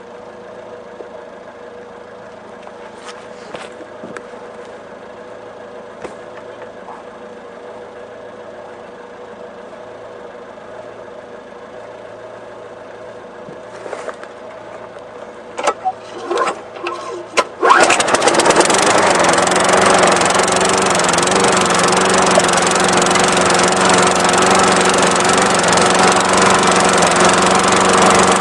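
Lawn mower engine cold-started after sitting about three months. After a long stretch of low background with a few faint clicks, the starter cord is yanked in several short, loud pulls; about eighteen seconds in the engine catches and runs steadily.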